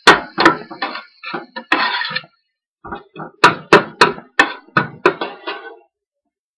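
Metal spoon stirring food in a stainless steel pan, knocking and scraping against the pan in a string of sharp clanks, quickest in the second half, then stopping about six seconds in.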